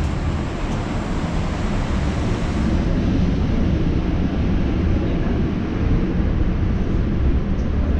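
Steady low roar of aircraft and apron machinery heard inside a glass-walled airport jet bridge, growing a little louder about three seconds in.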